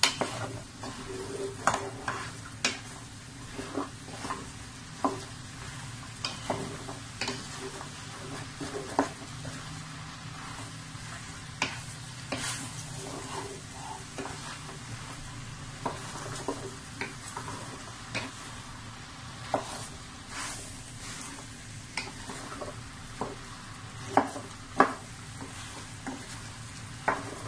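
Wooden spatula stirring and scraping diced potato, carrot and minced chicken around a stainless steel pot, with frequent irregular clacks against the pot and two louder knocks near the end, over a low sizzle of the mixture frying in oil.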